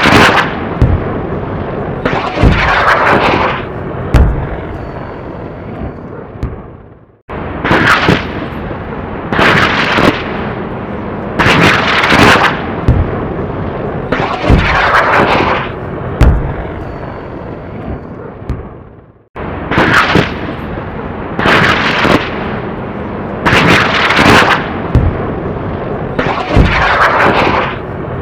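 Rockets fired from an aircraft at close range: loud blasts about every two seconds, each a sudden bang trailing into a rushing whoosh, with low thuds between. The volley dies away and starts again twice.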